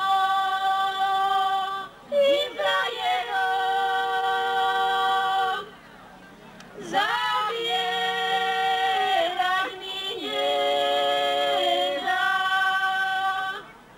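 A trio of women singing a Slovak folk song unaccompanied, in long held notes. The phrases break off briefly for breath, and each new phrase swoops up into its first note.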